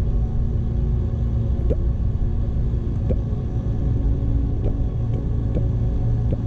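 Steady low rumble on a head-mounted camera's microphone, with a few faint short sounds over it now and then.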